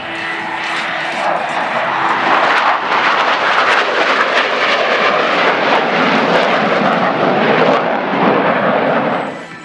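Four jet fighters flying past in close formation: loud jet engine noise that builds over the first couple of seconds, holds, then cuts off abruptly near the end.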